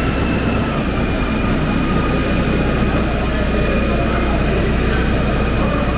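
Busy exhibition-hall ambience: a steady low hum with the chatter of visitors mixed into it, and a faint steady whine above.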